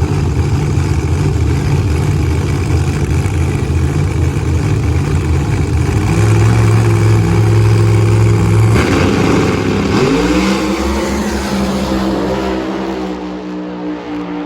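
A vehicle engine running steadily, then revving up about two-thirds of the way in and holding at the higher pitch before fading out near the end.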